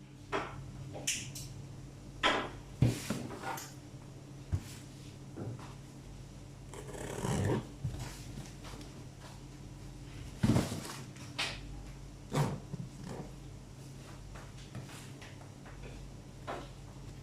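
Parcel packaging being handled: scattered knocks, scrapes and rustles, with a longer rustle about seven seconds in, over a steady low hum.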